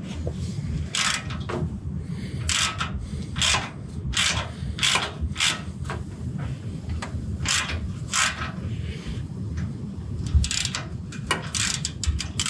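Hand ratchet turning a 5/16-24 tap into a drilled hole in a steel frame rail. The pawl clicks about every half second as the handle swings back between short cutting strokes, with the scrape of the tap cutting thread.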